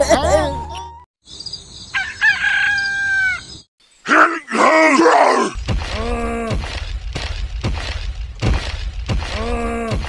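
Dubbed cartoon sound effects: a rooster crowing, followed by a voice groaning and moaning in pain several times.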